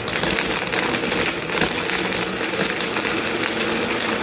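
High-speed countertop blender running steadily and noisily, pulverising cooked lobster carcasses and vegetables in hot liquid.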